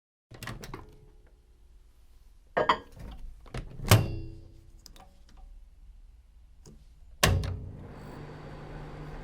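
Microwave oven being loaded: the door clicks open, a dish is set inside with a clunk, and the door is shut with a loud clunk that rings briefly, about four seconds in. A little after seven seconds the oven starts with a thump and runs with a steady hum.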